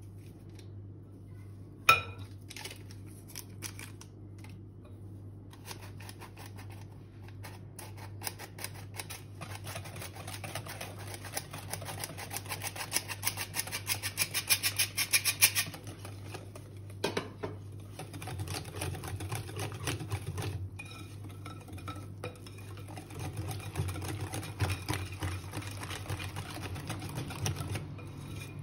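Hand-crank stainless steel flour sifter being worked over a glass bowl: rapid metallic clicking that builds up and stops suddenly about halfway through, after a sharp knock near the start. Then a wire whisk stirring batter in the glass bowl, over a steady low hum.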